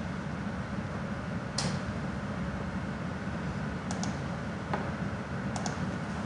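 A handful of sharp computer mouse clicks, two of them close together, over a steady low background hum.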